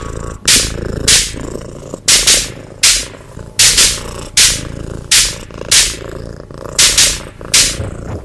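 Rhythmic noise soundtrack: sharp hissing pulses about every three-quarters of a second over a steady low rumble.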